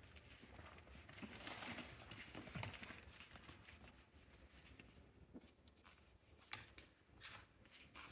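Faint scratching and rustling as pug puppies scuffle and wrestle on a blanket, busiest in the first half, with a few sharp ticks later on.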